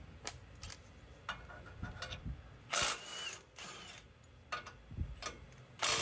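Ratchet wrench clicking while a 17 mm bolt is undone, with scattered clicks and two louder bursts of ratcheting, about three seconds in and near the end.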